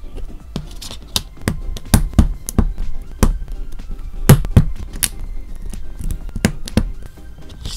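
LEGO plastic bricks and plates being pressed and snapped together on a tabletop: a string of sharp, irregular clicks and taps, the loudest about four seconds in. Background music plays underneath.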